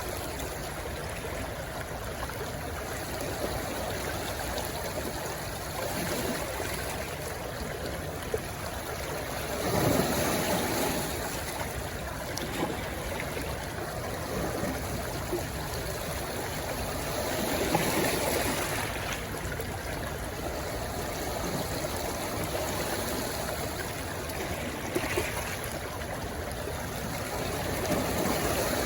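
A small rushing stream flowing into the sea: a steady gurgle and rush of running water that swells louder for a few seconds about a third of the way in, again past halfway, and near the end.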